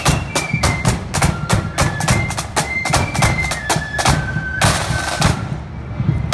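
Marching band on parade: snare drums rattling out a quick march beat under a high-pitched melody on wind instruments. There is a louder noisy burst, like a crash, about four and a half seconds in, and the tune stops near the end while the drums carry on more quietly.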